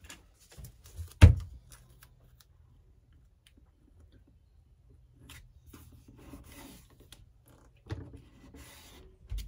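Blue painter's tape being pulled off the roll and pressed along wooden trim, soft rubbing and tearing noise in two stretches in the second half. A single sharp knock about a second in is the loudest sound, with a few lighter knocks around it.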